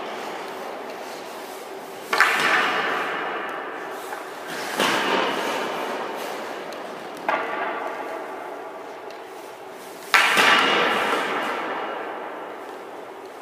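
Ice hockey goaltender's pads and skates hitting the ice as he drops into and shifts along the post in the reverse-VH position: four sharp impacts about every two and a half seconds, each ringing out in a long echo around the rink.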